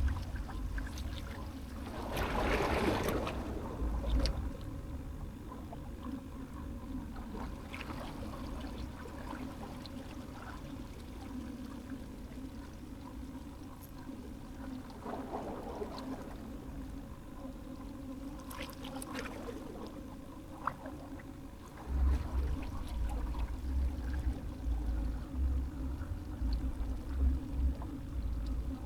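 Water lapping and trickling at the water's edge, with a few short splashy swells, and gusts of wind rumbling on the microphone from about two-thirds of the way in.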